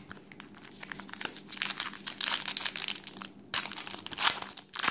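Foil trading-card pack wrapper crinkling in bursts as it is handled and worked open by hand, busiest in the second half.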